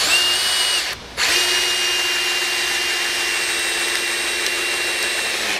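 JCB brushless cordless drill driver in low speed (position one) driving a screw into a 2x4: a steady motor whine, briefly stopping about a second in, then running steadily for about four more seconds before cutting off near the end.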